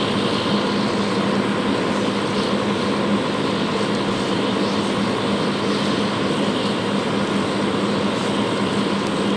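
Fire engine's pump engine running at a steady high speed, a constant drone with an unchanging hum, under the hiss of a hose stream spraying water onto burning brush.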